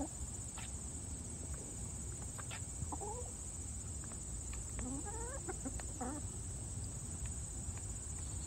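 Hens clucking softly as they feed, with short rising murmurs about three seconds in and again between five and six seconds, and light taps of beaks pecking in a plastic feed bowl. A steady high drone of insects runs underneath.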